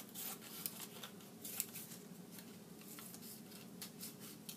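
Scissors cutting scrap paper: a series of faint, irregular snips.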